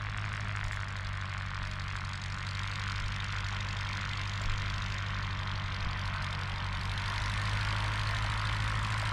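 Propeller engine of a replica Bristol Boxkite biplane droning steadily in flight, slowly growing louder as it comes closer.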